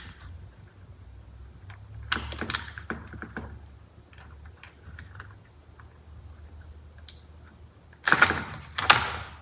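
Small plastic clicks and rattles of hands working an electrical connector apart, the wiring plug of a heated steering wheel's heating element. A louder clatter in two pushes comes about eight seconds in.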